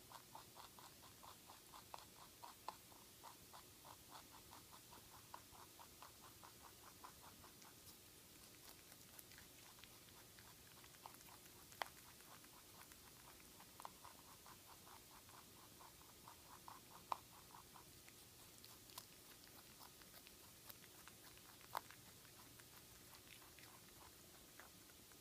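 Netherland Dwarf rabbit chewing a carrot: faint, rapid, even crunching in runs of several seconds, with a few sharper clicks between.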